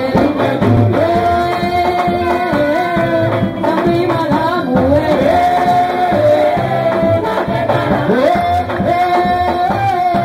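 Festive music with singing and a steady drum beat.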